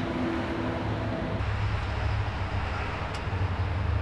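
A vehicle engine's steady low rumble, getting heavier about a third of the way in.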